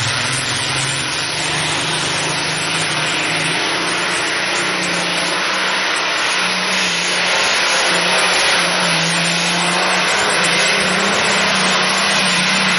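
Multi-engine supercharged modified pulling tractor running at full throttle under load on a pull: a loud, steady engine drone whose pitch creeps up partway through.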